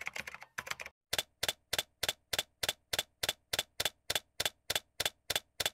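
Computer keyboard keystrokes: a quick flurry of clicks at first, then single keystrokes at a steady pace of about three a second.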